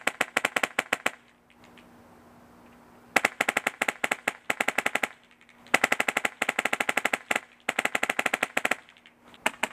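HPA airsoft rifle with a Polar Star Fusion Engine fired rapidly on semi-auto. It makes strings of sharp pneumatic shots, about ten a second, in five bursts with short pauses between them.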